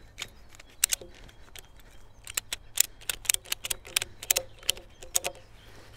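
Metal hook and ratchet of a tie-down strap clicking and clinking as the strap is hooked to a logging wagon's frame and tightened over a load of logs: a string of sharp, irregular clicks, bunched in quick runs through the middle and latter part.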